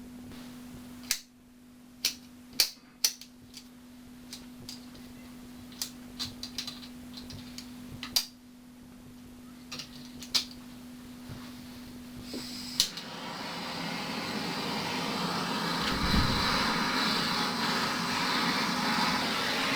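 Scattered clicks and knocks of tools being handled over a steady low hum. About two-thirds of the way through, a steady rushing mechanical noise starts and grows louder.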